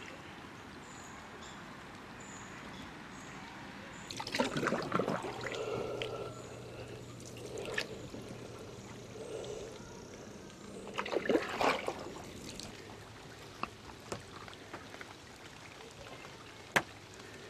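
Kayak paddle strokes: water pouring and trickling off the paddle blades in a few separate spells a couple of seconds apart, after a quiet start. There is one sharp click near the end.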